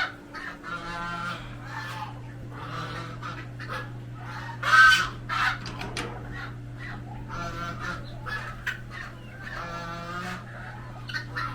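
Farmyard poultry calling again and again, several honk-like calls with the loudest about halfway through, over a steady low hum.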